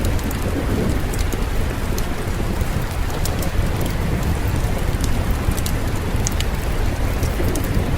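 Steady rain ambience with a constant low rumble underneath and scattered sharp crackles and ticks throughout.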